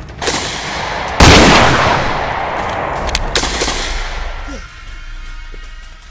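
Gunshots: one shortly after the start, then a much louder blast about a second in that dies away slowly over a few seconds, followed by a few sharp cracks a little after three seconds in.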